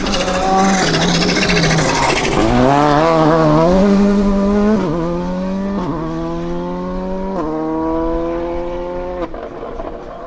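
Volkswagen Polo GTI R5 rally car's turbocharged 1.6-litre four-cylinder engine pulling hard through the gears. The pitch climbs and drops sharply at each of four upshifts in the second half. A harsh hiss rides over the engine for the first few seconds while the pitch wavers.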